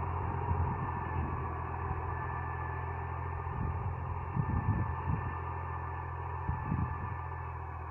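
Diesel tractor engine running steadily under load as it pulls a tillage implement through the field, slowly growing quieter as it moves away. A few irregular low thumps, like wind buffeting the microphone, come through over it.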